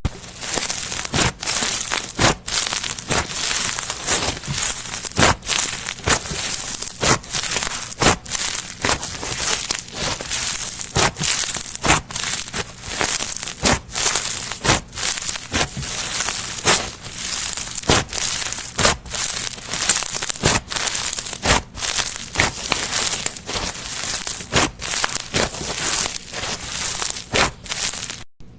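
Slime being kneaded and squeezed by hand, a dense crackling with sharp pops about once a second. The sound cuts out briefly just before the end.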